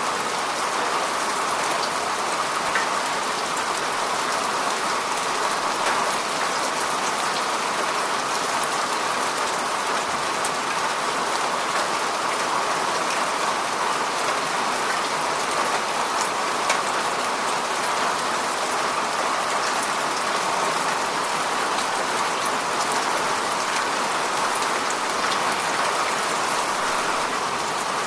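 Steady rain falling on a hard surface, an even hiss with scattered individual drop ticks.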